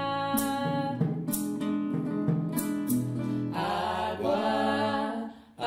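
Several voices singing together to a strummed acoustic guitar, with a few sharp percussive taps in the first half; the music breaks off briefly near the end.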